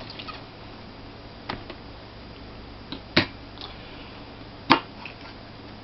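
A few sharp clicks and light knocks, spaced a second or more apart, from a laptop hard drive in its metal case being handled, with the loudest two about three and four and a half seconds in.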